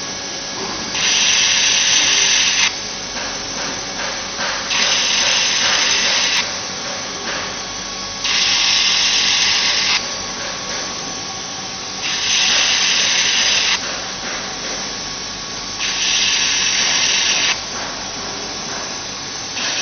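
High-power laser welder working a pillow plate: a loud hiss that switches on for under two seconds, five times about every four seconds, over a steadier, quieter machine hum with a few light clicks between the spells.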